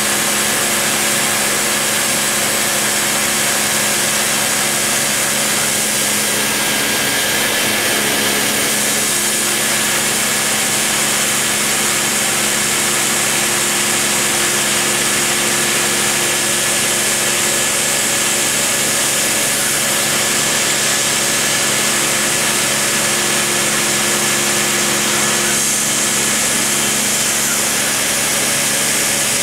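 Dremel rotary tool spinning at high speed while its bit cuts a groove in MDF: a steady whine with a hiss over it.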